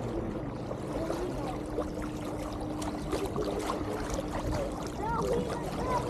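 Water rushing and splashing along the hull of a small boat under way. A steady hum sets in after about a second and stops near the end.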